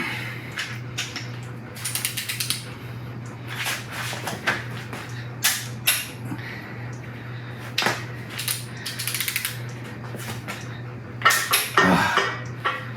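A hand ratchet on the cylinder-head bolts of a 5.3 L LS V8 clicking in several short, fast runs as the bolts are torqued to 80 ft-lb and rechecked. Separate sharp metal clinks and knocks come between the runs, the loudest cluster near the end, over a steady low hum.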